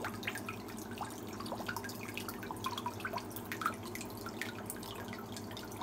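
Water dripping and trickling into a fish-rearing tank: many small, irregular plinks over a steady low hum.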